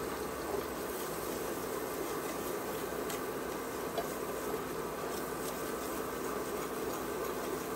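Minced garlic frying in butter in a cast-iron skillet: a steady sizzle, with a few light taps of a silicone whisk against the pan as it is stirred.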